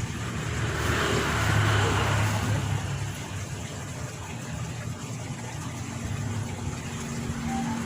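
A motor engine running steadily with a low hum, growing louder about a second or two in and then easing off.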